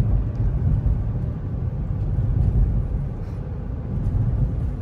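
Steady low rumble of road and tyre noise inside the cabin of a Rivian R1T electric pickup driving at about 44 mph.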